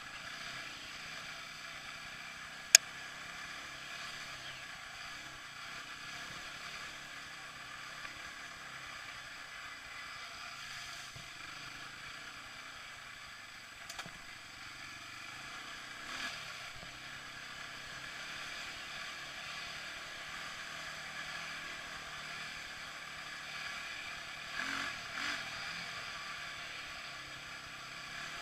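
ATV (four-wheeler) engine running at a steady speed while riding, with one sharp click a little under three seconds in and a few small knocks later on.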